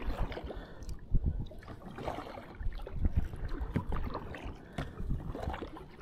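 Double-bladed paddle strokes beside a small inflatable PVC kayak: the blades dip and pull through calm water with splashing and dripping, and irregular low thumps between strokes.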